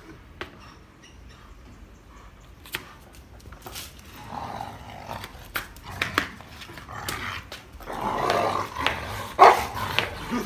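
Rottweiler growling in rough play as it tugs at a rubber tyre. The growling starts about four seconds in and grows louder toward the end, mixed with scattered sharp knocks.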